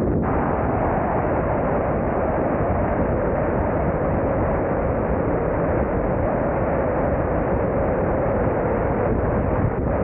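Wind rushing steadily over the microphone of a moving car, mixed with the car's engine and tyre noise on the road.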